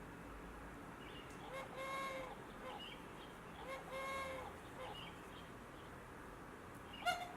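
Recorded woodland animal calls played through the small speaker of a children's sound book: two drawn-out, bird-like calls about two seconds apart, then a sharper call near the end.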